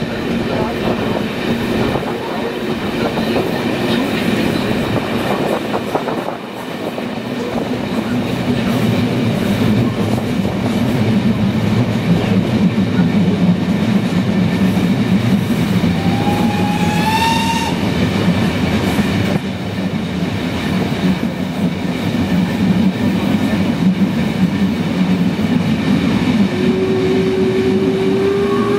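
A train running at speed, its carriage wheels clattering over the rail joints, heard from an open carriage window. About halfway through a locomotive whistle gives a short blast that rises in pitch, and near the end a longer whistle starts, also rising in pitch.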